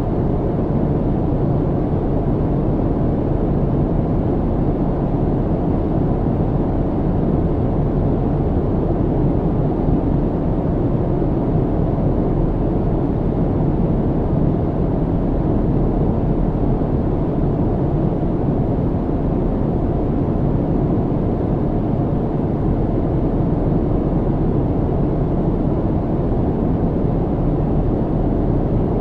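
Steady low cabin noise of an airliner in flight: the even, deep rush of engines and airflow heard from inside the cabin, unchanging throughout.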